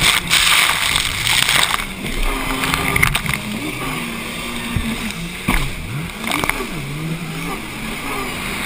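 Racing jet ski engine revving up and down as the throttle is worked through rough chop, its pitch rising and falling several times in the second half. Spray and wind rush over the helmet microphone, heaviest in the first two seconds.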